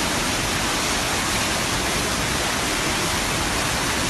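Fast, churning muddy floodwater rushing past in a torrent: a loud, steady wash of water noise.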